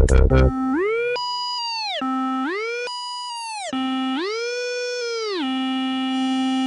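Electronic music breakdown: after the beat drops out about half a second in, a lone synth tone slides up an octave and back down three times, then holds the low note.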